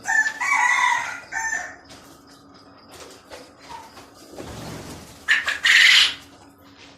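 Chickens calling loudly: a long crowing call in the first second and a shorter call just after. About five seconds in comes a loud, harsh squawk.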